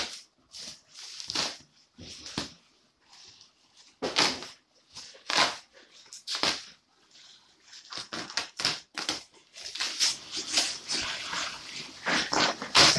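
Bubble wrap and plastic packing crinkling and rustling in irregular bursts as hands pull tape and wrapping off a motorcycle frame. The rustling grows busier and almost continuous over the last few seconds.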